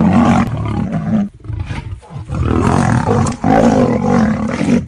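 Big cat roaring and snarling in loud, rough bouts, broken twice by short pauses around the middle.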